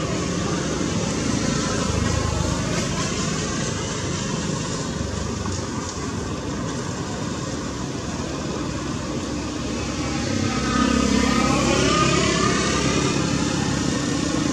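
Steady engine noise of motor traffic. It grows louder about ten seconds in, with a pitch that rises and falls as a vehicle passes.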